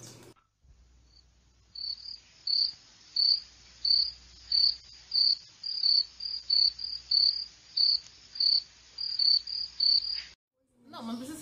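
Cricket chirping sound effect: a steady row of short, high chirps, about two a second and quickening slightly near the end, starting and stopping abruptly. It is the stock 'crickets' gag marking an awkward silence.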